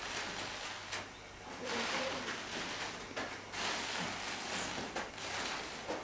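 Rustling and scraping of a large roll of old carpet being rolled up along the floor, coming in several swells of about a second each.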